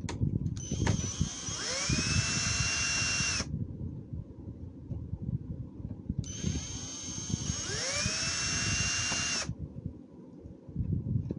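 A cordless electric screwdriver runs twice, about three seconds each time, driving out screws from a robot vacuum's plastic base. Each time its whine rises in pitch as it spins up, then holds steady before stopping. Handling noises fill the gap between the two runs.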